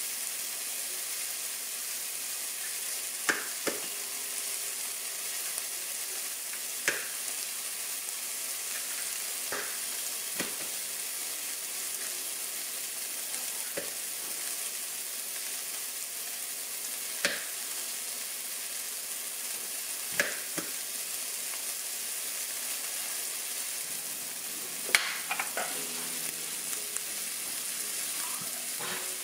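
Sausage frying in a pan with a steady sizzle, broken every few seconds by sharp taps, about a dozen in all: eggs being cracked against the rim of a stainless steel bowl.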